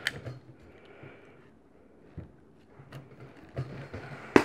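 Faint rustling and small knocks of rope and a hand staple gun being handled against a rope-wrapped wooden scratching post, then one sharp snap of the staple gun firing near the end.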